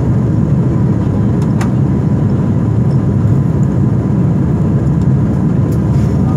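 Steady, loud cabin noise of an airliner climbing after takeoff: the deep, even rush of jet engines and airflow heard from inside, with a faint steady whine above it.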